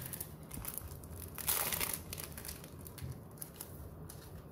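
Clear plastic wrapping crinkling and rustling as hands handle it, loudest about one and a half seconds in and dying down after about three seconds.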